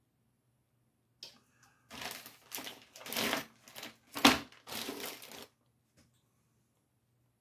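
Crinkling and rustling of crinkly craft material or plastic packaging being handled: a string of short crackly bursts over about four seconds, the loudest a sharp crackle a little past the middle.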